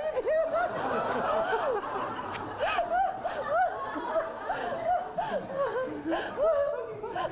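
People laughing together, in a run of short, repeated giggles and chuckles.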